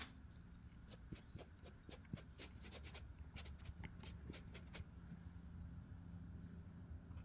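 Faint dabbing and rubbing of a sponge over a leather-hard clay bowl: a quick run of soft ticks and scrapes as the sponge cleans burrs off the carved design lines.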